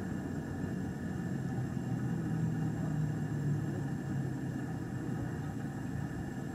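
A steady low rumble, with a low hum that swells about two seconds in and fades again toward the end.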